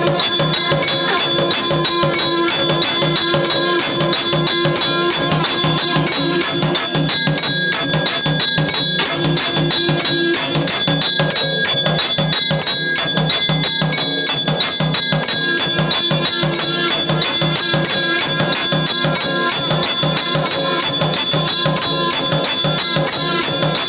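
Electric temple aarti machine striking a bell, jhalar cymbals and a nagara drum in a fast, steady mechanical rhythm, with its conch sound switched off.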